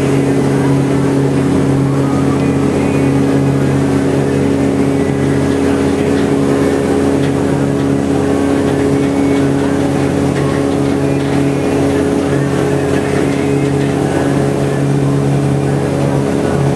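Ferry boat's engine running at a steady cruise, a constant low drone with an even hum.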